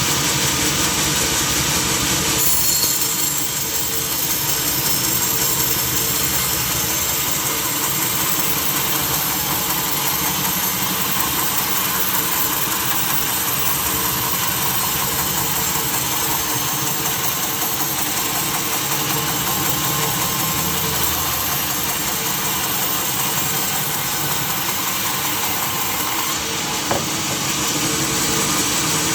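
Sawmill machinery running steadily: a motor hum under a constant high hiss, the hiss changing about two and a half seconds in and again near the end.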